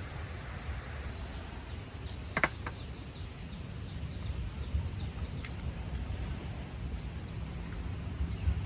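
Outdoor farm ambience with a steady low rumble and scattered short, high, falling bird chirps. Two sharp knocks come close together about two and a half seconds in.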